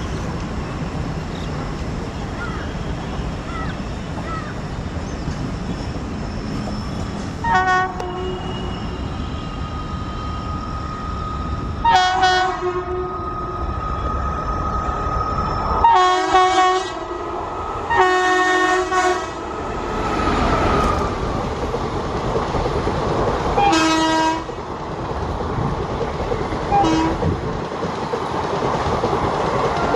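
Indian Railways WAP-4 electric locomotive sounding its horn again and again as it approaches, with short toots and two longer blasts of about a second past the middle, over the steady rumble of the oncoming train. The rumble grows louder toward the end as the locomotive and its coaches run past.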